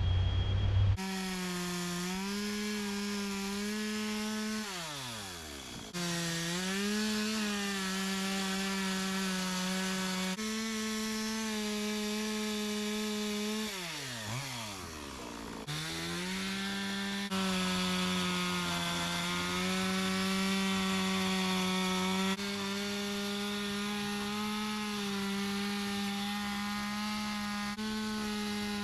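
Chainsaw engine running at high revs while carving wood. Twice it drops away to idle and revs back up.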